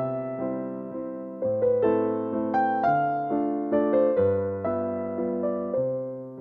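Background music: a gentle electric piano melody, notes struck one after another with chords underneath.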